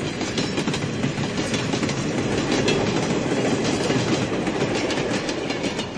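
Double-stack intermodal freight train rolling past: a steady rumble of the cars with many sharp clacks of wheels over rail joints.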